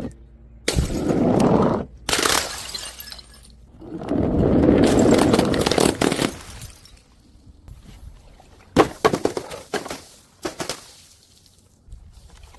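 Glass breaking and shattering in a few loud crashes, each a second or two of crunching and tinkling, followed later by a quick run of sharp cracks.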